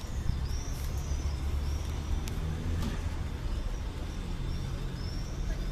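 Outdoor street ambience: a steady low rumble of traffic, with small birds chirping repeatedly over it.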